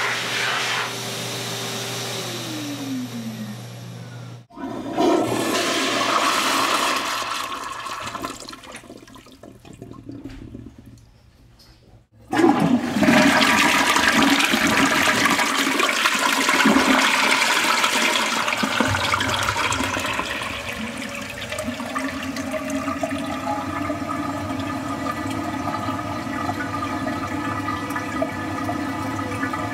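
Rushing water. A rush starts suddenly about four and a half seconds in and dies away over several seconds. A louder rush then starts abruptly about twelve seconds in and holds steady, with a low hum growing under it later. Before the first rush, a steady hum slides down in pitch and cuts off.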